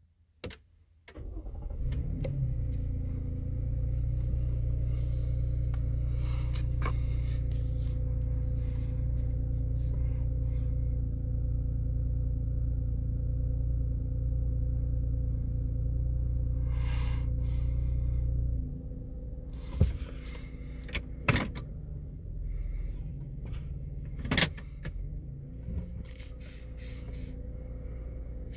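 2020 Toyota Highlander's engine starting about a second in with no chime, then running at a steady idle. Past the middle its sound suddenly drops to a quieter steady hum, and a few sharp clicks follow.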